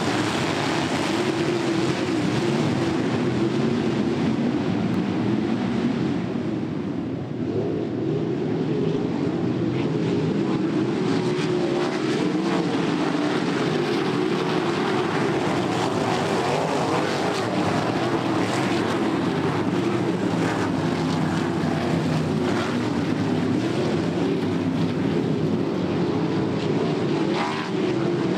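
A pack of winged dirt-track sprint cars racing, their V8 engines making a continuous loud din. Several engines sound at once, their pitch wavering up and down.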